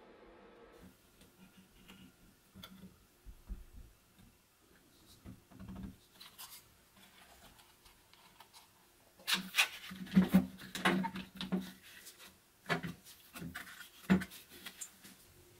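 Workbench handling noises as the wooden parts of a small saw housing are fitted together: light clicks and rubbing at first, then a run of louder knocks and rubs from about nine seconds in as a one-handed bar clamp is put on the housing.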